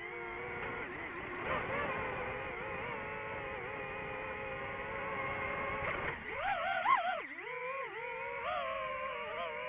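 The motors and propellers of a DJI FPV drone whine, and the pitch glides up and down with the throttle. About six seconds in the pitch climbs and swoops sharply, loudest just before the seventh second, then settles into a steadier whine.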